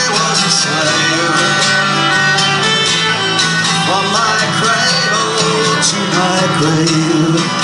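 Acoustic guitar and violin playing live in a country/bluegrass style, the violin carrying a sliding melody over steadily strummed guitar.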